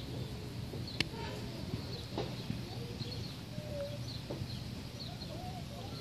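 Soft, brief clucking from fowl, with small birds chirping high and repeatedly in the background and a single sharp click about a second in.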